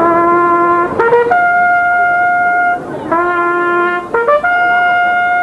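A trumpet plays a rising bugle-style call: a held low note, a short middle note, then a long high note. The call comes twice, with a brief break between.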